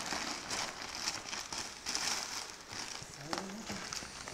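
Brown packing paper rustling and crinkling as it is folded and pressed over a framed picture, with irregular small crackles.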